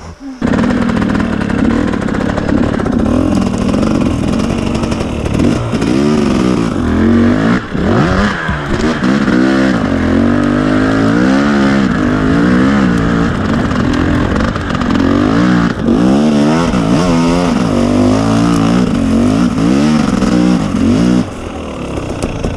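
KTM 250 EXC two-stroke dirt bike engine running under load, its pitch rising and falling constantly with the throttle, easing off slightly near the end.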